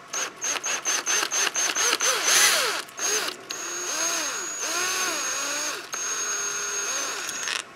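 Ryobi cordless drill running slowly in reverse with a screw extractor bit, backing out a stripped hex bolt. The motor whines in short rapid pulses for about three seconds, then runs steadily for about four seconds with a rising and falling squeal under it, and stops near the end.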